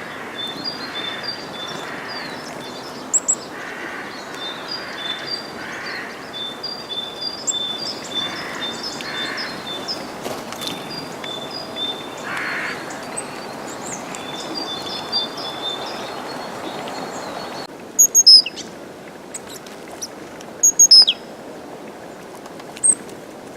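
Tits calling: a long run of short, high, repeated notes over a steady background hiss, then, after an abrupt change about three-quarters through, a few loud, sharp high chirps, the loudest of them about 18 and 21 seconds in.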